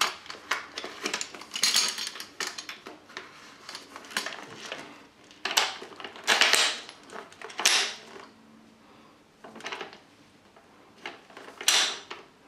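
Irregular clicks, clacks and scrapes of an A&K M249 Para airsoft gun's buttstock and folding bipod legs being pulled out and locked.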